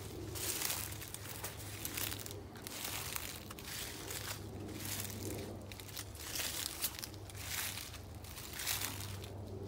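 Footsteps crunching through dry fallen leaves on a forest floor, a steady walking pace of about one step a second.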